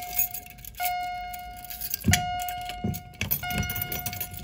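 Fire alarm chime appliance sounding a single ringing tone struck about every 1.3 seconds, three times, each strike fading away; it is the alarm signal of a pulled manual pull station. Keys jangle as a key works the pull station's reset lock.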